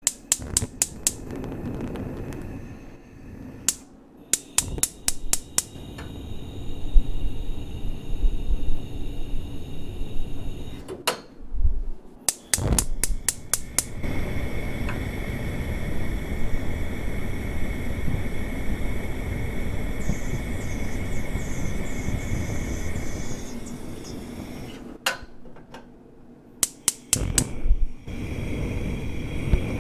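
Gas stove's electric igniter clicking in quick runs of several clicks, repeated a few times. Between the runs the lit burner's gas flame rushes steadily.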